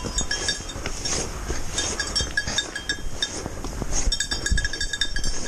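Bells on a herd of goats clinking and jingling irregularly as the goats walk along the lane.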